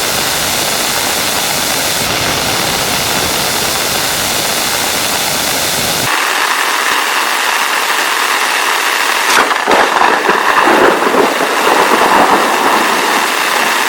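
Heavy rain falling as a steady hiss. The sound changes abruptly about six seconds in, and about three seconds later a sharp crack of thunder is followed by a few seconds of louder, uneven rumbling over the rain.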